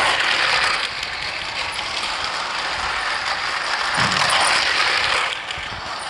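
Battery-powered remote-control toy bullet train running on a plastic track, its motor and gears whirring. The whir gets louder as the train passes close by at the start and again about four seconds in.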